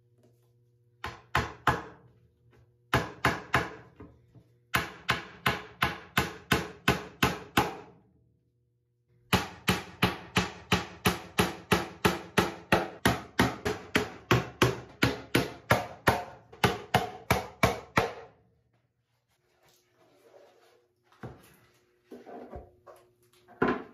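Claw hammer tapping small nails into a plywood bookshelf back panel, in runs of quick, even blows about three a second with short pauses between nails. The longest run lasts about nine seconds. Near the end come a few quieter knocks and handling sounds.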